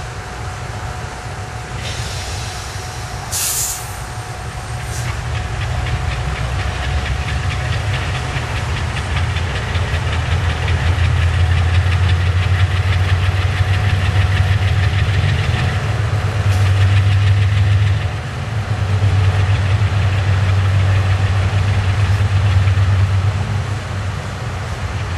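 GE U23B diesel locomotive's V12 engine running with a deep, steady rumble that builds up a few seconds in as it is throttled up and works under load, dipping briefly in the second half. A short, sharp burst of air hissing comes early on top of it.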